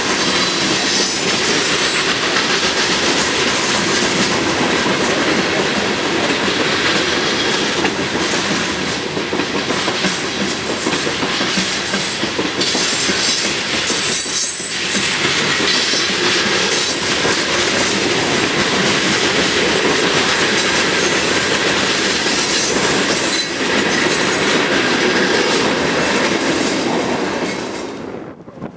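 Freight train of open-top hopper cars rolling past close by: a steady loud rumble and rattle of steel wheels clicking over the rail joints, with now and then a thin high wheel squeal. It drops away suddenly right at the end.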